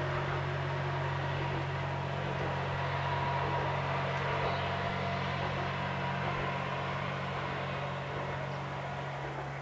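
Diesel railcar's engine running steadily, a low drone with a hiss above it, easing off slightly near the end.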